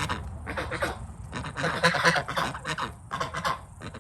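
Geese honking: a string of short, harsh calls, several a second, overlapping.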